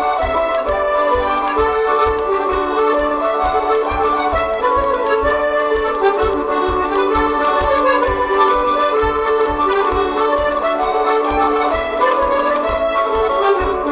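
Two-row diatonic button accordion (melodeon) playing a tune: a moving melody with chords over a steady, even beat in the low end.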